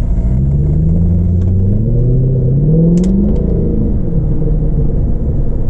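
Mercedes-AMG C63's V8 with secondary cats and resonators deleted, accelerating: the engine note rises for about three seconds, a short sharp crack sounds near the top, then the revs fall away.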